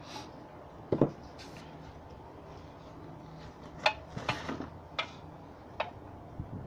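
Handling noise of pedestal paving: a sharp knock about a second in as a paving tile is set down on its plastic pedestals, then a few short clicks and clinks as a metal level is laid across the tile edges.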